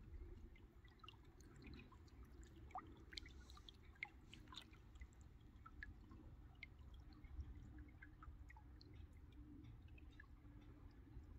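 Faint, scattered water drips and small splashes at a kayak on a creek, over a low steady rumble.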